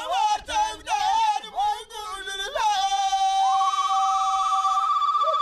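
Vocal music: a singer runs through a melodic phrase, then holds one long note. About three and a half seconds in, a higher held tone with a fast, even warble joins it and holds.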